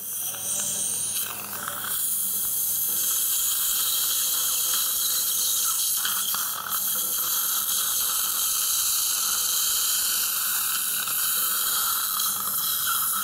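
Implant surgical handpiece drilling through a guide sleeve, heard as a steady hiss with a faint motor hum that runs in two stretches, from about three seconds in and again from about seven seconds in.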